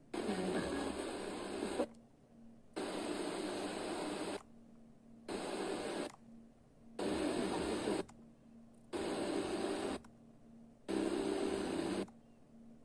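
FM tuner hiss from the Sony DAV-560 receiver being stepped through empty or weak channels. It comes in six bursts of hiss of about a second each, each cut short by a quiet gap as the tuner moves to the next frequency.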